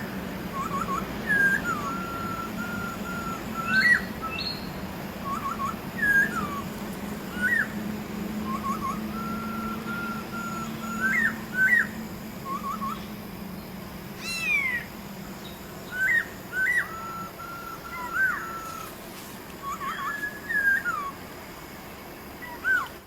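Masked laughingthrush (poksay hongkong) calling: clear whistled phrases of short upward-flicked notes and held level whistles, repeated every second or two over a low steady hum.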